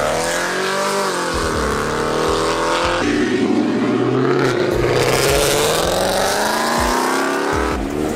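Muscle car engines revving and accelerating hard as the cars pull away, the engine pitch rising and falling. The sound changes abruptly about three seconds in and again near the end, as one car's engine gives way to another's.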